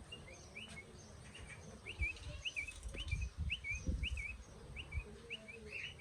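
A bird chirping over and over in short, high chirps, about three a second and often in pairs, with some low thumps underneath.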